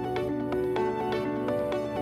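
Background music: a melodic piece of evenly paced pitched notes.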